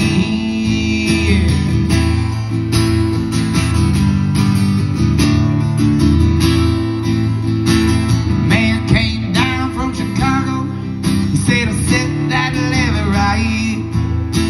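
Acoustic guitar strummed live by a solo performer, a steady chord pattern opening a song.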